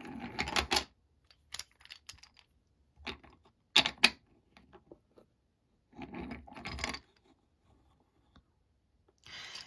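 Wooden toy train engine and wooden track pieces being handled on a tabletop: short rolling and clattering noises of wood on wood, with two sharp clicks about four seconds in, the loudest sounds.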